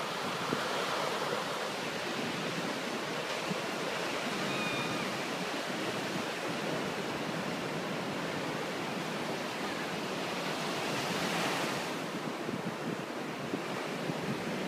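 Ocean surf breaking and washing up a sandy beach: a steady rush of waves, with one wave breaking a little louder about eleven seconds in.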